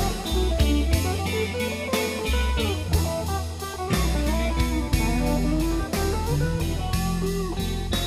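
Instrumental rock music: a guitar playing a melody over bass and a drum kit.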